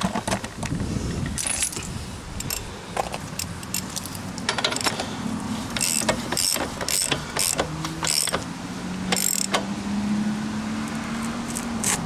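Socket ratchet clicking and metal clinking as the rear axle nut of a Suzuki DR650 is run down and tightened, in short irregular runs of clicks. A low steady hum comes in about two-thirds of the way through and rises slightly.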